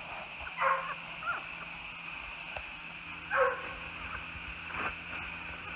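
Black Labrador puppies yipping: two short high yips, one about half a second in and one past three seconds, with a couple of fainter squeaks between.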